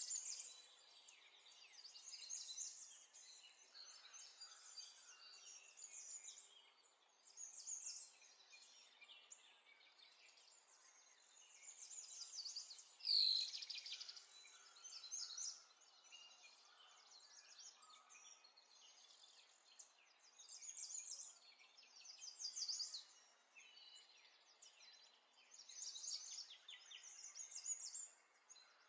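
Faint birdsong: repeated high chirps and short trills, with one louder call about thirteen seconds in.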